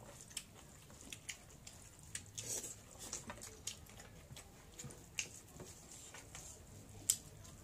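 Faint close-up eating sounds from two people eating rice by hand from metal plates: wet chewing and scattered short smacks and clicks, with one sharper click about seven seconds in.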